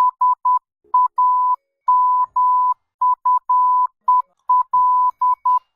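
Morse code beeps: one steady electronic tone keyed in short dots and long dashes, spelling the name SAMUEL (... .- -- ..- . .-..), with longer gaps between letters.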